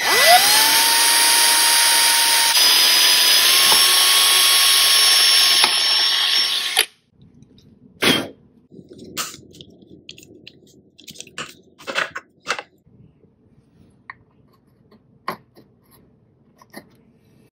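Ridgid cordless drill spinning up and running steadily as its bit bores through PVC pipe, the motor whine stepping up slightly in pitch a couple of times; it stops about seven seconds in. Scattered clicks and knocks follow.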